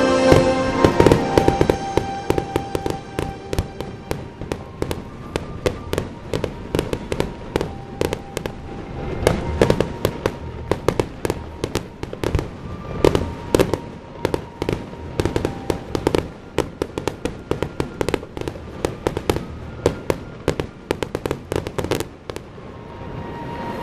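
Aerial fireworks bursting in quick succession, a sharp bang or crackle several times a second, denser in a few volleys. Background music fades over the first couple of seconds and goes on faintly beneath the bangs.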